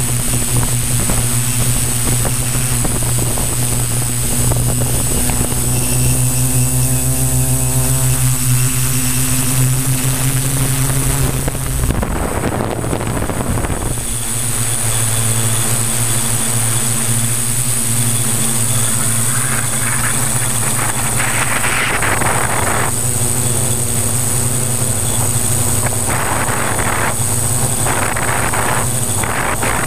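Electric motors and 15x5.5 propellers of a multirotor drone, heard from close by on the craft: a steady buzzing hum whose pitch shifts as the motors speed up and slow down, with a brief change about twelve seconds in.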